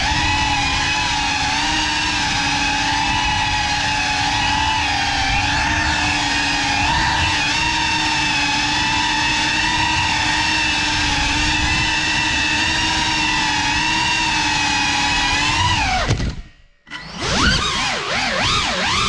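BetaFPV Cinelog35 ducted cinewhoop FPV drone: motors and propellers give a steady, high-pitched whine in flight. About sixteen seconds in, the throttle is cut and the whine falls away almost to silence. It then spools back up with a wavering pitch as the drone manoeuvres.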